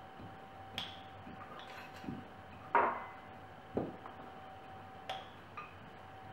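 A metal spoon clinking against a glass jar and tapping on metal pie tins as fruit mince is scooped out and spooned into pastry cases: about half a dozen separate clinks and knocks, the loudest about three seconds in, over a faint steady hum.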